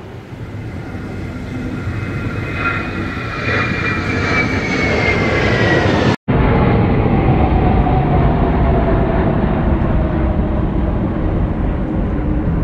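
Jet noise from a formation of four Su-30MK2 fighters flying past: a loud roar that builds, with a whine that falls in pitch as they pass. The sound breaks off for an instant about six seconds in, then carries on with a lower, falling whine.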